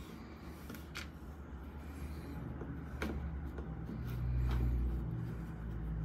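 A few light clicks and scrapes of a screwdriver and plastic light-switch cover plate as the cover screws are worked loose, over a low rumble that swells about four seconds in.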